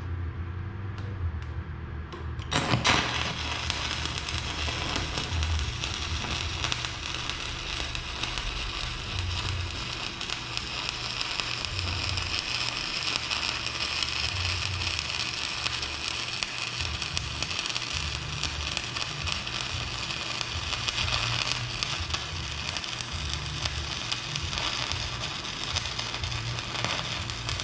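Stick-welding (SMAW) arc struck about two and a half seconds in, then crackling and sizzling steadily as a bead is laid to weld a tooth onto a worn excavator bucket shank.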